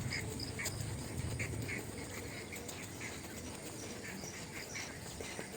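Short animal calls, several a second, over a low rumble that fades after the first couple of seconds.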